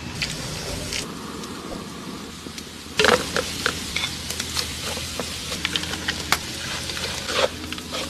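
Onions frying in hot oil in a metal pan, sizzling. About three seconds in, the sizzle jumps louder as chopped ingredients are scraped into the pan, with repeated taps and scrapes of a wooden spatula against the pan.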